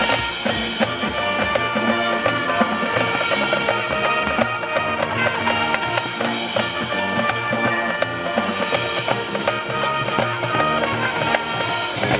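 High school marching band playing: brass and woodwinds sound sustained chords over steady drum and percussion hits.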